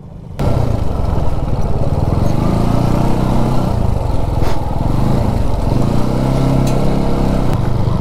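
TVS Apache RTR 200 4V's single-cylinder engine running as the motorcycle is ridden over a rough dirt track, heard close from the bike itself. The engine note rises and falls a little with the throttle. It starts suddenly about half a second in.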